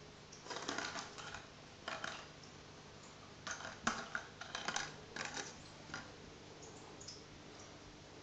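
Light plastic drinking straw clattering and skittering on wooden floorboards as a cat bats at it with its paws, in a few bursts of quick light taps, the busiest a few seconds in.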